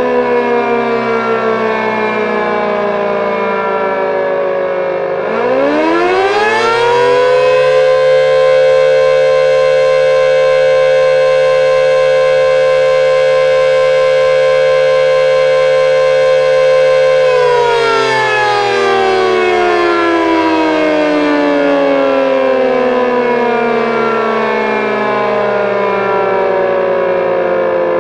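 Elektror L138 motor siren with its high-tone and low-tone vertical units sounding together, giving one blast of the fire-alarm signal: at first the pitch is still winding down, about five seconds in both units spin up quickly to a steady loud two-pitched wail, and after about ten seconds held they lose power and wind slowly down in pitch.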